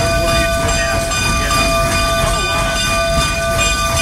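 Cab sound of the Rio Grande K-36 narrow-gauge 2-8-2 steam locomotive #484 moving slowly: a steady low rumble and running noise, with several steady high-pitched tones held throughout.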